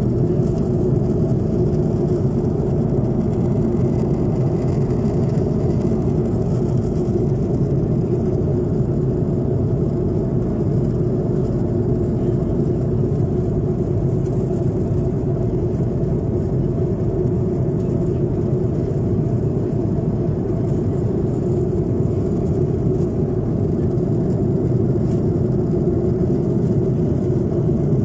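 Steady engine and air noise inside an airliner's cabin: a constant low drone with a few level hum tones running through it.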